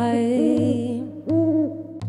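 A woman singing slow, held notes that arch up and down in pitch, in two phrases, over a steady low drone.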